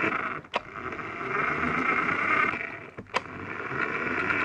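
Toy remote-control car's small electric motor and gears running as it drives across the floor, with a whirring that rises and falls. Twice it cuts out for a moment, followed each time by a sharp click.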